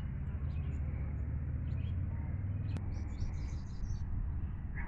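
Birds chirping in short, high calls, with a cluster of quick notes about three seconds in, over a louder, steady low rumble.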